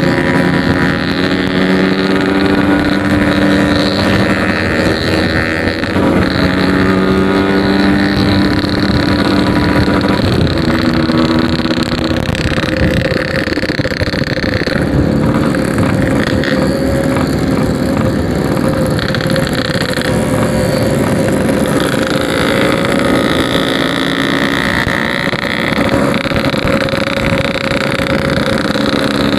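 Yamaha RX-King 135cc two-stroke single-cylinder motorcycle engine running under way. Its pitch holds steady, with brief breaks about six and twelve seconds in, and a noisier rushing sound takes over in the second half.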